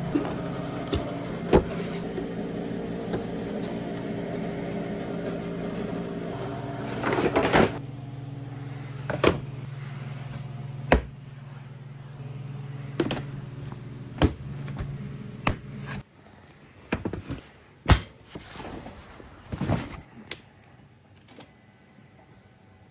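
Plastic body panels and trim of a Can-Am Renegade ATV being handled and snapped back into place: a series of sharp clicks and knocks with a brief rustle, over a steady hum that cuts off about two-thirds of the way through.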